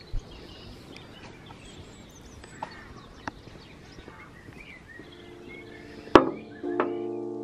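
Garden birds chirping and singing over faint outdoor ambience, with a few light clicks. About five seconds in, soft piano music comes in, and just after six seconds there is a sharp knock, the loudest sound.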